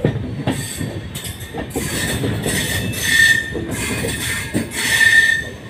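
Passenger train coaches running and slowing as the train arrives at a station, with high wheel squeals that swell about three seconds in and again about five seconds in, over a steady rumble and clatter.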